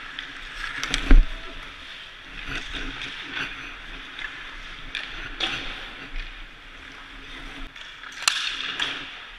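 Ice hockey shot and save: a loud thump about a second in as the puck hits the goalie's pads, over skate blades scraping the ice, with sharp stick-and-puck cracks, one loud one near the end.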